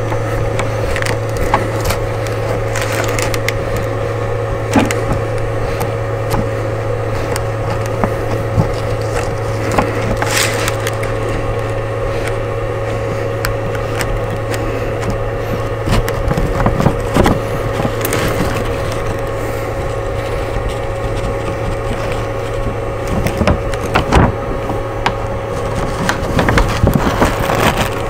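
A hand rubbing and pressing a self-adhesive magnetic sheet flat onto a 3D printer's bed, with scattered crackles and taps that grow busier in the second half, over a steady low hum.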